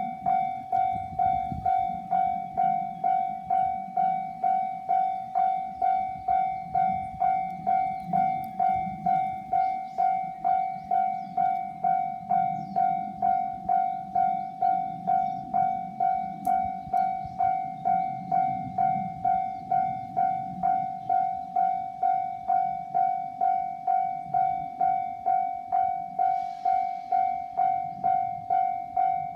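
Japanese level-crossing alarm ringing: one steady electronic bell tone struck evenly, about one and a half times a second, over a low rumble. A brief hiss comes in near the end.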